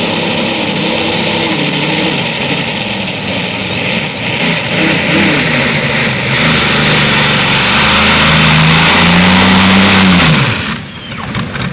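Multi-engine 7,500 lb modified pulling tractor pulling a sled at full throttle, its engines' pitch wavering under load and then climbing to a high, steady pitch. About ten seconds in, the engines come off throttle and fall away.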